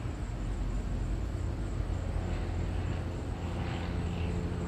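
Steady low rumble and hum of background noise, unchanging, with no distinct events.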